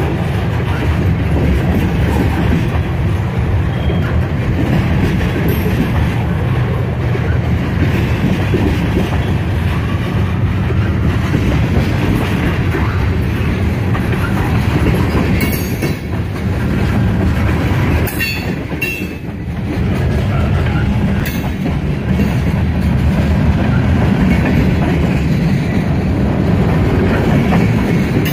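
CSX mixed freight train rolling past: a steady low rumble of the cars with wheels clicking over the rail joints. A few sharp clanks come about two-thirds of the way through.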